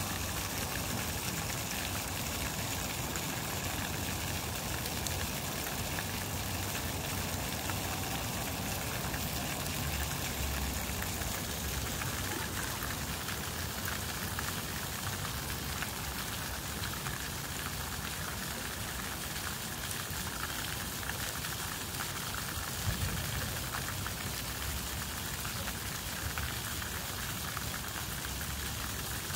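Steady hiss of splash-pad fountain jets spraying, the water spattering onto wet pavement, over a low rumble. One brief thump about three-quarters through.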